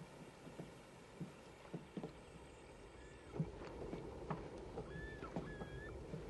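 Faint outdoor film soundtrack: scattered light knocks and clicks, with a few short high chirps in the second half.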